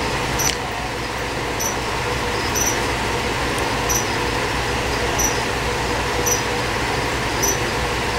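Steady mechanical hum and hiss in the room, with a short high chirp repeating about once a second and a single click about half a second in.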